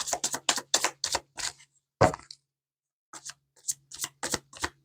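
A deck of tarot cards being shuffled by hand: a quick run of card clicks and slaps, a stronger knock about two seconds in, a short pause, then another run of clicks.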